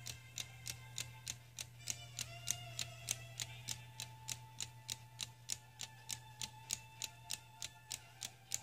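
3D-printed plastic tourbillon clock ticking steadily, about four ticks a second, over soft background music with long held notes.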